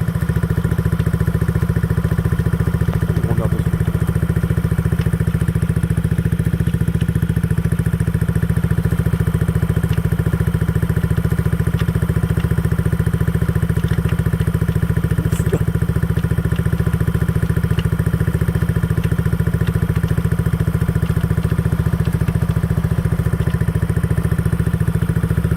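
Yamaha Cygnus X scooter's single-cylinder engine idling steadily, with a strange knocking noise that the owner cannot place and suspects comes from a muffler close to breaking or from the transmission.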